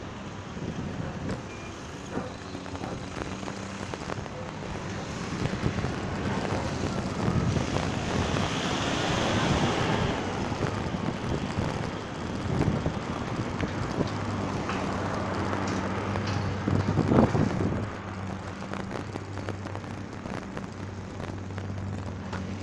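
Road traffic heard from a moving bicycle: cars and trucks going by close alongside. One vehicle passing swells to the loudest point about two thirds of the way through, and a steady low engine hum runs through the last several seconds.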